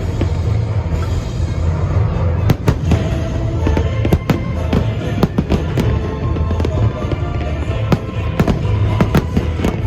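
Fireworks bursting in quick, irregular succession, many sharp bangs and cracks, with music playing along with the show.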